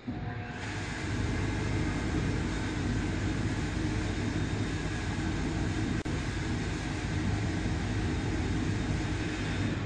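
Air shower unit's blowers and air nozzles running, a loud, steady rush of air that starts abruptly, builds within about a second, holds level and dies away near the end: one air-blowing cycle on a person inside the booth.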